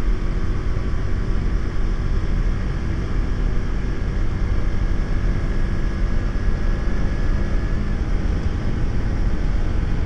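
KTM Duke motorcycle running steadily at cruising speed, with wind rushing over the microphone.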